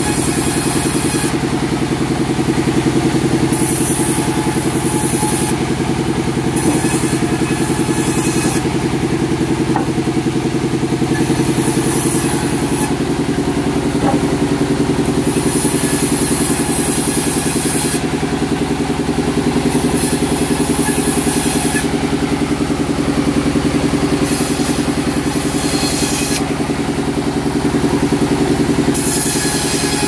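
Sawmill machinery running: a steady engine drone, with a high hiss that comes and goes every few seconds.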